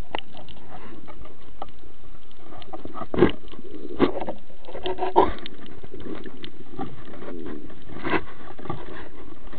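Underwater sound picked up through a camera's waterproof housing: a steady muffled hiss of water with a few sharp clicks and knocks, four of them standing out about three, four, five and eight seconds in.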